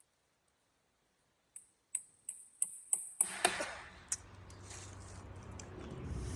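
A run of sharp, evenly spaced taps, about three a second, starting about a second and a half in and growing louder. A low steady hum comes in about halfway through.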